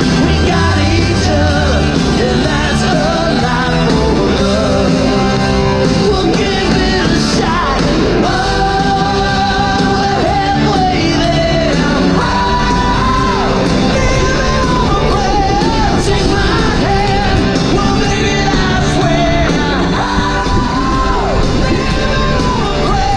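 Background music: a rock song with a singer's voice carrying the melody over a full band.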